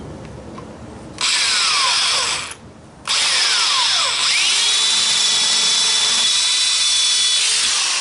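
Black & Decker drill boring a hole into a stucco wall: a short run, a brief stop, then a longer run of about four and a half seconds with a whine that rises and then holds steady, winding down near the end.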